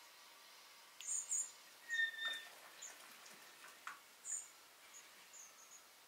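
Small birds chirping: a few short high chirps about a second in, a brief whistled note around two seconds in, then scattered fainter chirps over a faint steady hiss.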